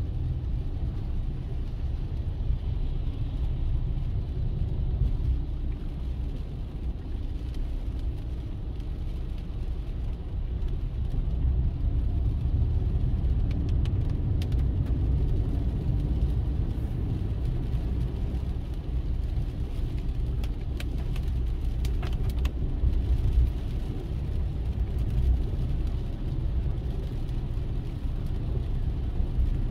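Car driving, heard from a dashcam inside it: a steady low rumble of road and engine noise, with a few faint ticks about halfway through.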